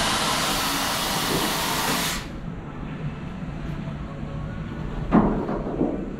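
A loud, steady hiss at a boat chute ride's loading station that cuts off sharply about two seconds in. Then the quieter low rumble of the ride boat moving into the wooden tunnel, with a couple of knocks about five seconds in.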